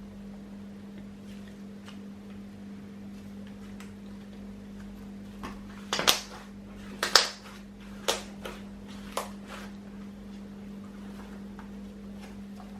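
Slime being pressed and worked by hand, giving off about six sharp crackles and pops in the middle, over a steady electrical hum.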